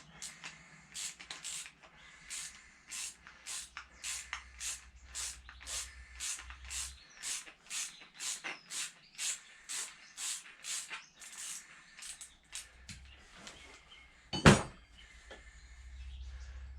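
Hand-tool work on an engine part: a long run of short, sharp strokes, about two a second, then one loud knock near the end.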